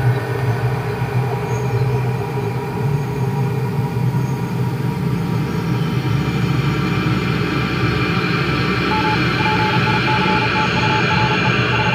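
Underground train running, a steady rumble and rush with a low hum that grows brighter in the second half. A run of short, evenly spaced beeps starts near the end.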